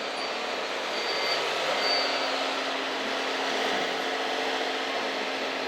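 Radio-controlled scale trucks and construction machines running: a steady mechanical whirring with a faint low hum, and short high whines about a second in and again at two seconds.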